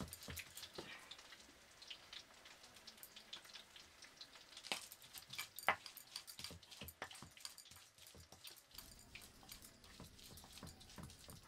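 Stone roller crushing spices on a flat stone grinding slab (Nepali silauto and lohoro): irregular small taps, knocks and scrapes of stone on stone, with two louder knocks about five and six seconds in.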